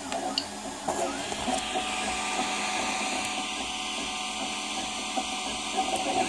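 Prusa i3 MK2S 3D printer at work: its stepper motors whine through short moves that rise and fall in pitch, mostly in the first second and a half, over a steady fan hiss.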